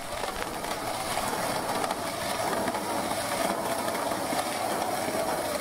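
Steady static-like hiss with fine crackle, even and unbroken throughout.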